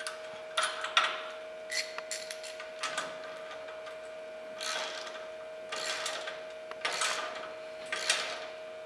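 Socket ratchet tightening a lock nut on a steel bolt: a few metal clicks at first, then short ratcheting bursts about once a second as the handle is swung back and forth.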